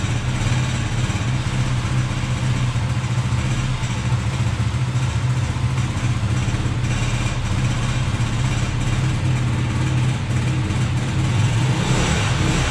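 An old carbureted car engine idling steadily on choke while it warms up after sitting unused for a month or two.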